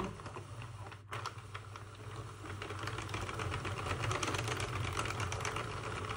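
Hand-cranked Sentro 48-needle knitting machine turning, its needles and gear ring making a rapid run of clicks as a row is knitted, with a brief pause about a second in.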